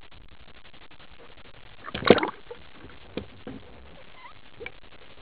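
Underwater handling noise as a speared white seabream is gripped on the spear shaft. There is one loud splashing, bubbling rush about two seconds in, then a few faint knocks.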